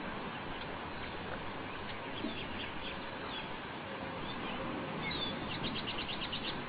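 Bird calls over a steady background hiss: a few scattered high chirps, then a quick trill of about ten short notes near the end.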